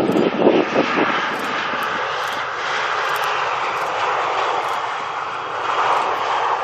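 Landing jet airliner passing overhead, its engines making a steady rushing noise. Wind buffets the microphone in the first second.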